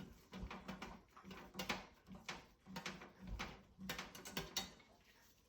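Brass dust covers being taken off a longcase regulator clock movement: a run of small irregular metallic clicks, taps and sliding scrapes as the plates are handled.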